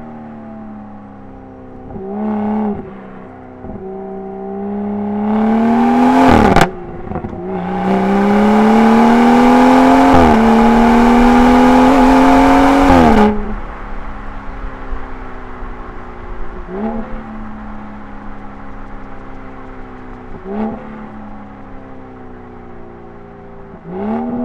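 BMW 340i's B58 turbocharged straight-six with an M Performance exhaust, heard from inside the cabin: it runs steadily at light throttle, then pulls hard with a rising, loudening note from about five seconds in. The note drops sharply at a quick gearshift, climbs again even louder, then cuts off abruptly as the throttle is lifted about thirteen seconds in, settling back to light cruising with a few brief rises in revs.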